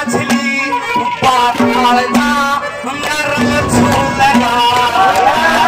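Live Haryanvi ragni music: a wavering melody line with vibrato over hand-drum strokes.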